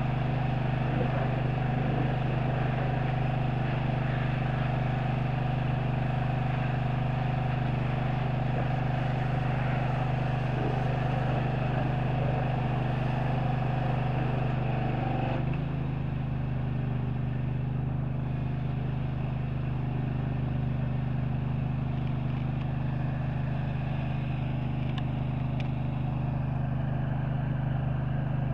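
An engine running steadily at idle, a low even hum. A higher whine in it stops about halfway through.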